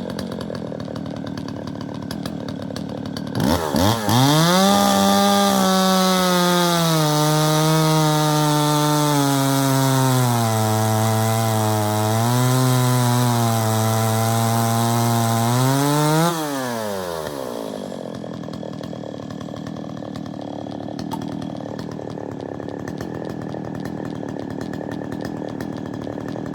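Jonsered 525 two-stroke chainsaw idling, then revved to full throttle about four seconds in and cutting into wood. The engine pitch sinks steadily as the chain grips and digs in, lifts briefly as the cut finishes, then drops back to idle about 17 seconds in.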